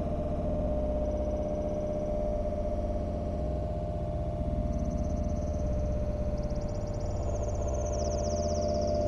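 Synthesizer music: a steady held drone over a low rumble, with a high warbling layer coming in about halfway and stepping down in pitch near the end.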